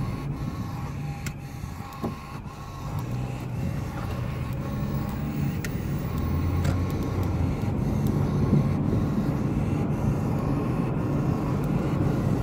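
Wind rushing past an open car window over a car's engine and road noise while driving, dipping about two seconds in and then building again as the car picks up speed.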